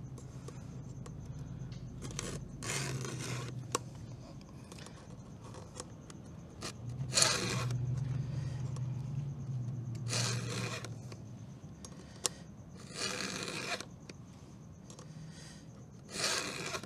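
Round chainsaw file in a filing guide rasping across the cutters of a Stihl saw chain: about six short forward strokes a few seconds apart, the file lifted off on the return. It is the sound of sharpening the chain's cutters at a 25-degree angle, one cutter after the next.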